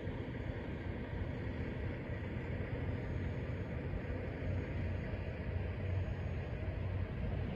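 Steady low rumble of interstate highway traffic, mixed with wind on the microphone.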